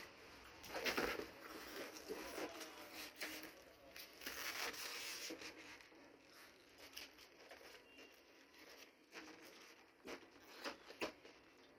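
A taped cardboard carton being opened by hand: two spells of tearing and rustling, about a second in and again around four to five seconds in, as the tape and flaps are pulled back. After that come scattered light clicks and knocks as VHS cassettes in their cases are lifted out of the packing.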